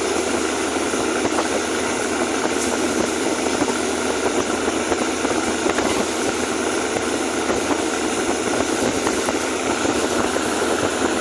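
Engine idling steadily and evenly, with no revving; it sounds tight and solid, the sign of an engine in good running condition.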